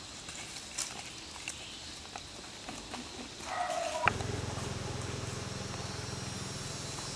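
A baby long-tailed macaque gives a short high squeal about three and a half seconds in, over faint rustling of dry leaves and scattered ticks. After a sharp click the background switches to a steady low hum.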